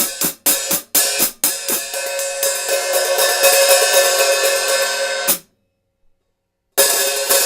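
14-inch Sabian AA hi-hat cymbals struck with a stick: evenly spaced, sharply decaying strokes about three a second, then a continuous ringing wash of quick strokes that stops suddenly. After about a second and a half of silence, the wash starts again near the end.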